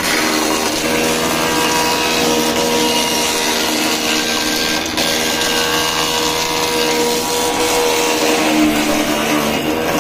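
Thickness planer running under load as a wooden board is fed through its cutterhead: a loud, steady machine whine over the hiss of the knives cutting the wood.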